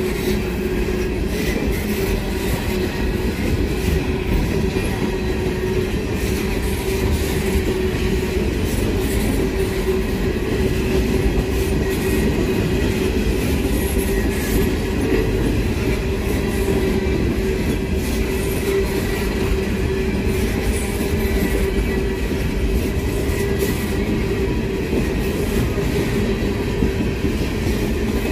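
CSX open-top coal hopper cars rolling past close by at a steady speed: a continuous rumble of steel wheels on the rails, with a steady whine running under it.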